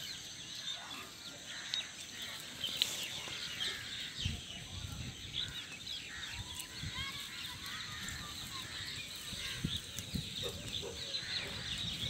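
Many birds chirping and calling in short, high-pitched bursts, a continuous busy chorus.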